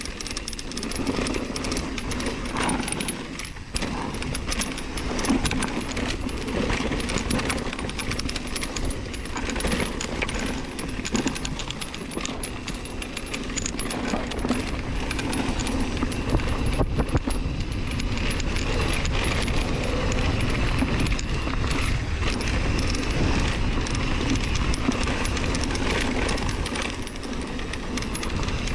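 Mountain bike riding over a rough dirt and rock trail: tyres crunching and bouncing, with the chain and frame clattering continuously over a low rumble.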